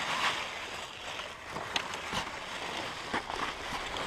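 Sled runners hissing and scraping over snow while the sled glides along a trail, with a few light knocks about halfway through.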